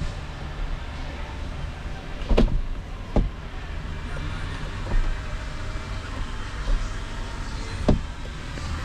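A few sharp knocks or clicks, the strongest about two and a half seconds in and another near the end, over a steady low rumble.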